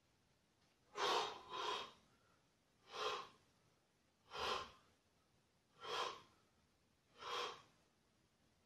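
A man's short, forceful breaths as he bends forward in a warm-up, one about every second and a half, the first one doubled.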